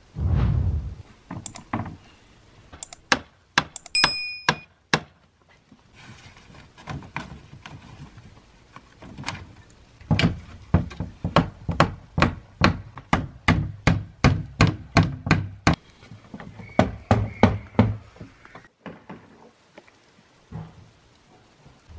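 Hammer blows on a wooden frame: a low thud at the start, then scattered sharp knocks and a quick run of strokes about halfway through, at two to three a second.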